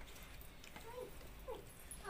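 A small young domestic animal crying faintly in short whimpers, two or three in quick succession, each one sliding down in pitch. Faint light clicks of fingers on a steel plate sound under it.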